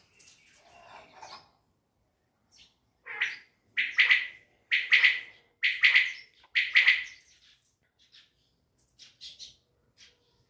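Caged quail singing: a run of five loud calls about a second apart, with fainter chirps before and after.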